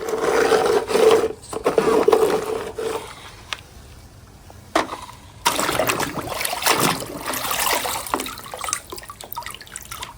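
Water sloshing and splashing as a small toy vehicle is dunked and washed in it, in two spells with a quieter pause between, the second starting about five seconds in.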